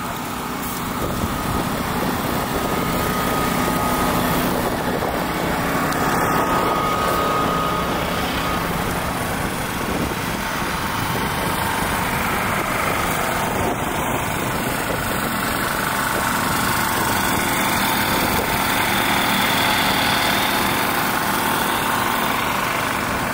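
Steady engine-like running noise that holds level throughout, with a faint murmur of voices.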